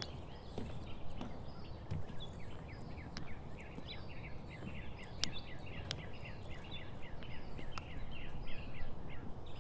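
Forest birds chirping: a quick, dense run of short high notes that thickens about three seconds in, over a low outdoor rumble, with a few scattered sharp clicks.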